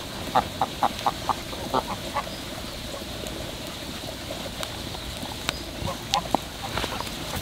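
An animal's short calls, about seven in quick succession, followed later by a few scattered fainter calls and clicks.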